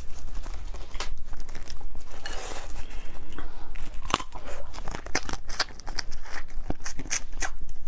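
Crab claws being bitten and chewed: irregular sharp crunches of shell cracking between the teeth, with softer chewing between them, the crunches coming thicker in the second half.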